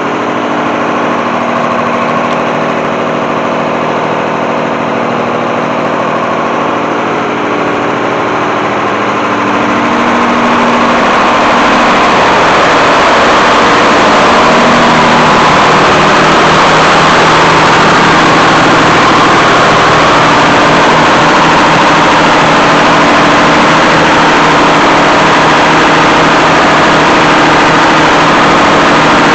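Detroit Diesel 6-71 inline-six two-stroke diesel idling steadily, freshly cold-started without ether or starting fluid; it grows louder about ten seconds in.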